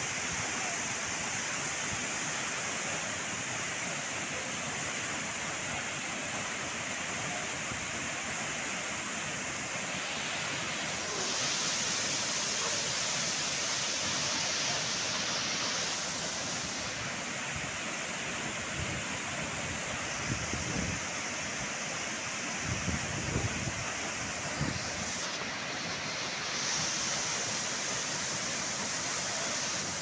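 Waterfall crashing over rock into a plunge pool: a steady rush of falling water whose level jumps up or down abruptly a few times.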